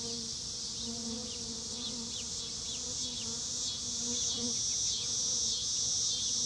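Evening chorus of singing insects: a steady high-pitched trill with short chirps repeating over it, growing louder about four seconds in. A faint low buzz comes and goes during the first four and a half seconds.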